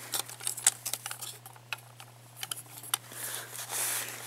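Hands handling a hard plastic toy robot dog: scattered light clicks and knocks, with a short rustling shuffle about three seconds in.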